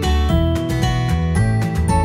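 Music led by a plucked string instrument over a steady bass line, with notes changing every fraction of a second.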